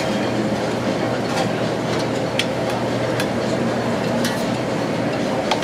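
Restaurant background noise: a steady roar with a few sharp clicks scattered through it.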